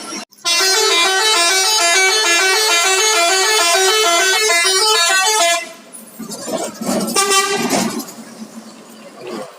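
Bus 'telolet' multi-tone air horn playing a fast melody of alternating notes for about five seconds, then cutting off abruptly. A few seconds of quieter mixed noise follow.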